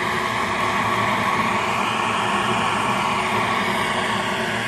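Handheld propane torch burning with a steady, even hiss, its flame held on wood pellets to relight a wood stove.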